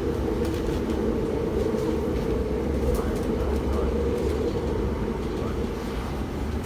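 MTR SP1900 (IKK) electric multiple unit heard from inside the carriage while running between stations. Its traction motors and wheels on the rail give a steady rumble and hum, with a few faint clicks.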